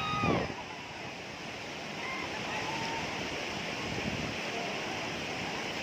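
Steady rushing of river water. A brief pitched call sounds at the very start, and a few faint short whistles come about two to three seconds in.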